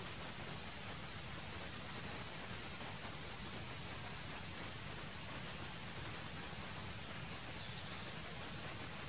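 Steady, high-pitched insect drone over a soft background hiss, with a brief rapid trill near the end that is the loudest sound.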